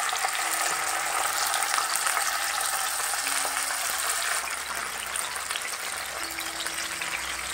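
Kingfish steaks sizzling as they shallow-fry in hot oil in a non-stick frying pan: a steady hiss with many small crackles.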